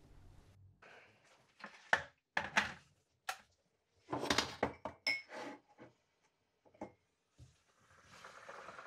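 Electric kettle and ceramic mugs handled on a worktop: a run of knocks and clinks, some ringing briefly, as the kettle is lifted and set back on its base. Near the end the switched-on kettle starts to heat, with a hiss that grows louder.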